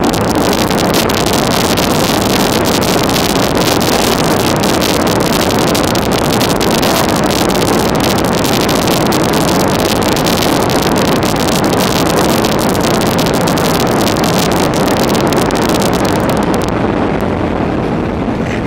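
Loud steady roar of a Boeing 737-700 landing, heard from inside the cabin, with the recording crackling and distorting. The crackle eases about 17 seconds in.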